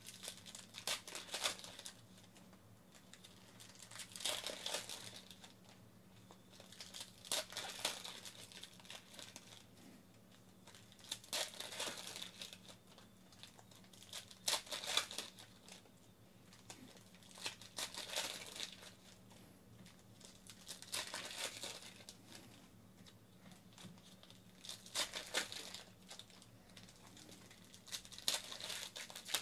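Trading-card pack wrappers being torn open and crinkled by hand, in separate bursts about every three to four seconds, nine in all.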